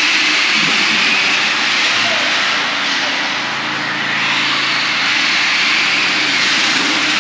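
Several radio-controlled cars racing off together, their motors whining steadily with a loud rushing noise, echoing under a concrete parking-garage deck.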